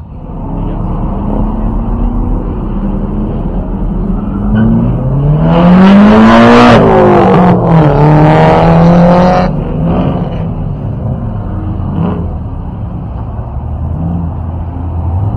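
A car engine running with a steady low rumble. About four and a half seconds in it revs up, rising in pitch for about two seconds. It then falls back and holds a steady lower pitch for a few seconds before easing off.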